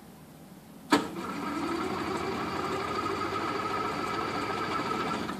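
Rotax 582 two-stroke engine of a Fly Synthesis Storch ultralight being cranked on a cold start: a sharp click about a second in, then a steady whirring that picks up slightly and holds for about four seconds before stopping without the engine catching.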